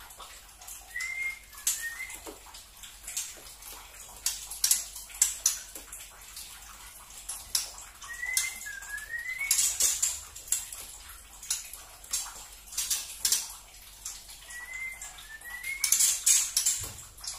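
Juvenile spotted white-rumped shama (murai batu trotol) giving its rapid dry ticking 'tretekan' chatter in bunches. A few short whistled notes bend up and down about a second in, about halfway through and near the end.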